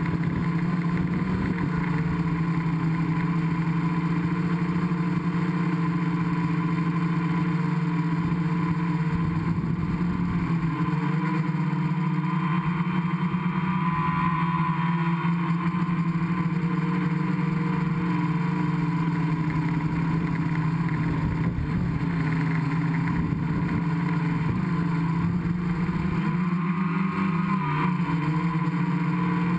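Gaui 500X quadcopter's electric motors and propellers buzzing steadily, heard up close from the onboard camera, the pitch wavering with throttle changes around the middle and again near the end.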